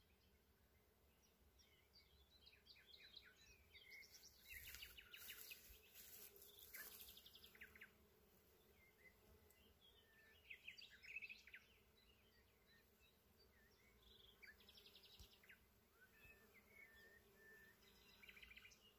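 Faint hum of bees working black locust blossoms, under scattered small-bird chirps and trills.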